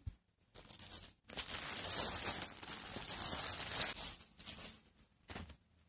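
Crinkling and rustling of a plastic packaging bag as a garment is pulled out of it, lasting about three seconds, followed by a short knock near the end.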